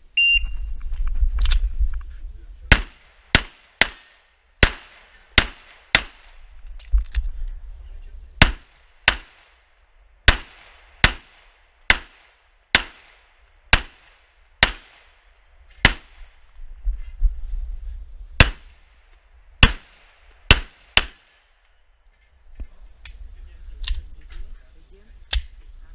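A shot timer's short start beep, then about twenty handgun shots fired in quick pairs and short strings during a practical pistol stage, with pauses of a second or two between strings and a low rumble of movement and wind on the head-mounted microphone.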